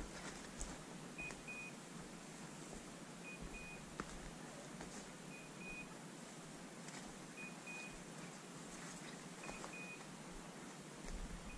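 Electronic beeper collar on an English setter, giving a short pair of high beeps about every two seconds, six pairs in all. It is faint, as from a dog some way off. A repeated beep at this rate is how such collars signal that the dog is standing on point.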